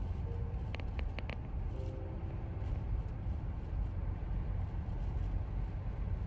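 Steady low road and engine rumble heard from inside the cab of a moving pickup truck, with a few faint clicks about a second in.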